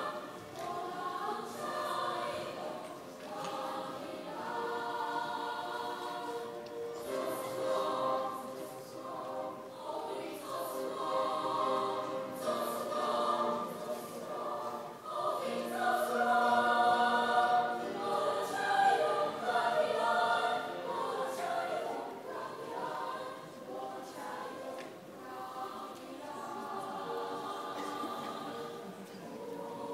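A small choir of seven teenage students singing together in harmony, several held notes sounding at once. It swells loudest about halfway through.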